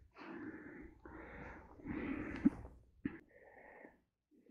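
A man breathing close to the microphone: a string of noisy breaths about a second each, with a short click about halfway through.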